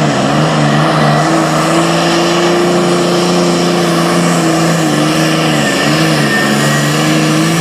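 Super farm pulling tractor's diesel engine running at high revs under load, its steady pitch dipping briefly a few times as the revs sag and recover.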